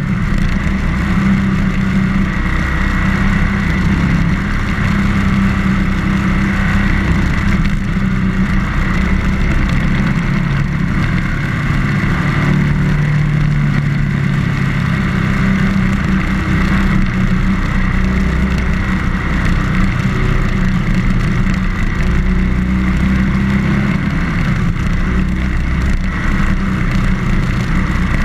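BMW R1200GS motorcycle's boxer-twin engine running steadily while riding, mixed with a continuous rush of wind and road noise.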